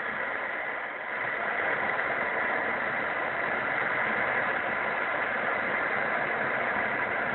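Heat gun running with a steady blowing hiss, with a brief dip about a second in. It is heating a seized bathtub faucet cartridge to loosen it.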